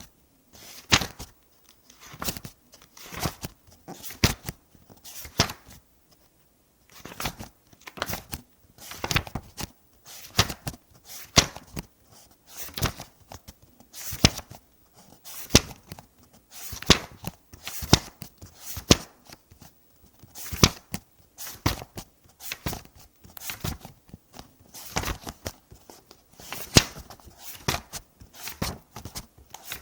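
Paper book pages being turned one after another, each flip a quick sharp rustle and snap, about one to three a second with a short pause about six seconds in.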